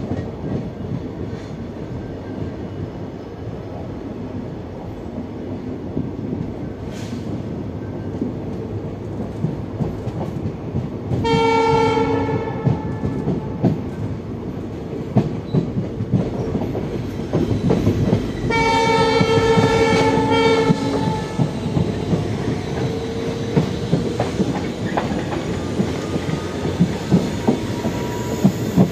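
Train running along the track with a steady rumble and rail clicks. A locomotive horn sounds twice, a short blast and then a longer one of a couple of seconds.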